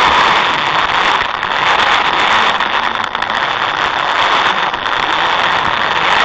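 HO-scale model locomotive running along its track, heard from a camera riding on it: a steady, loud whirring hiss from the motor and wheels, with faint scattered clicks.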